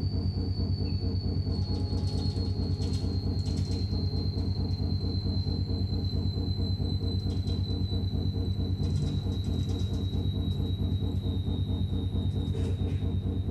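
Stage soundtrack of a steady low rumble with fast, even pulsing, like a train running, under a thin high tone that slowly sinks in pitch.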